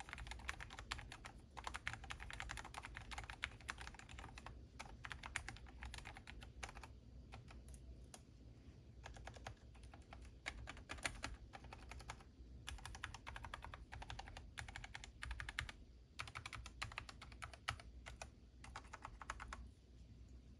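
Typing on a Monstargear MK84S slim low-profile mechanical keyboard: rapid runs of keystroke clicks in bursts of a second or two, with short pauses between them.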